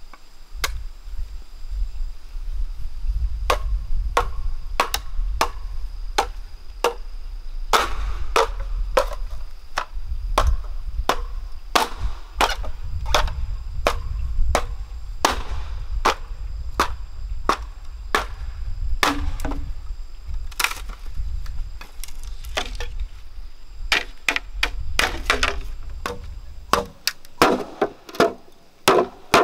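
Machete chopping green bamboo: sharp single hacks at an irregular pace of roughly one or two a second, coming in quicker bunches near the end, over a low rumble.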